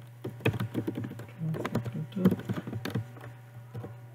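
Computer keyboard keys clicking in a quick, irregular run of keystrokes, over a steady low hum.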